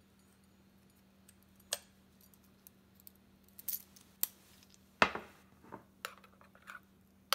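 A few scattered sharp clicks and knocks on the countertop, the loudest about five seconds in, then a metal spoon clinking and scraping against a ceramic bowl as it stirs a thick yogurt paste.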